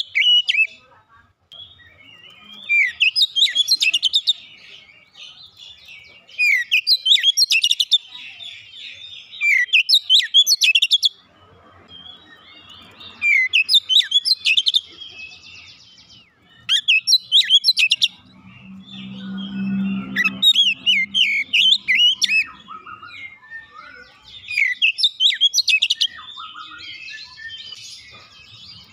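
Oriental magpie-robin (kacer) singing in repeated bursts of rapid, varied whistles and chirps, with short pauses between phrases. A brief low hum sounds under the song about two-thirds of the way through.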